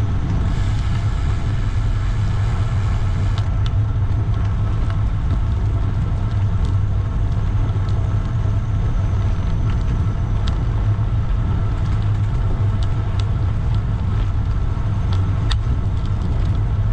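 Steady low rumble of road traffic heard while cycling, with scattered faint clicks; a brighter hiss joins it near the start and cuts off suddenly about three and a half seconds in.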